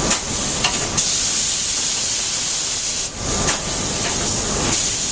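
Compressed-air spray gun hissing steadily as it sprays non-stick coating onto cookware vessels on the coating line, breaking off briefly about three seconds in.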